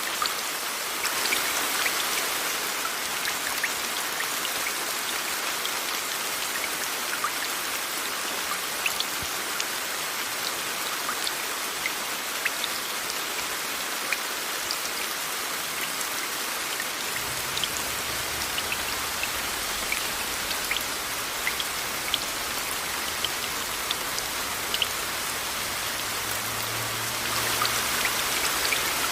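Steady rain, a dense even hiss with many small drops ticking on a surface, blended with white noise. It swells slightly about a second in and again near the end.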